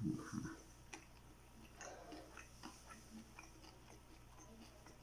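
A person chewing food with the mouth closed: faint, irregular wet clicks of the mouth, after a short low sound at the very start.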